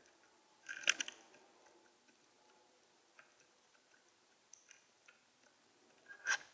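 House sparrow pecking seed on a Bird Buddy feeder, heard close up through the feeder's built-in microphone: a quick cluster of sharp taps and clicks about a second in, scattered faint ticks, and another loud tap near the end.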